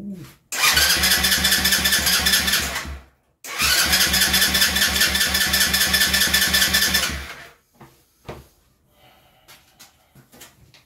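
A 50cc mini chopper engine cranking on its electric starter in two bursts of about three seconds each, a fast even chugging under the starter's whine, without catching.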